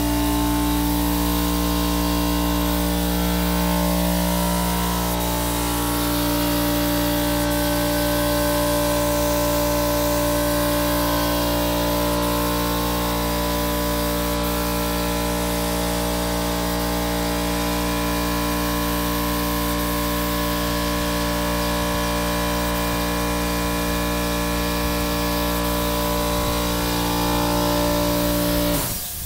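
Air compressor running steadily under the hiss of a gravity-feed paint spray gun laying a first coat of paint on a car's hood. The sound cuts off sharply just before the end.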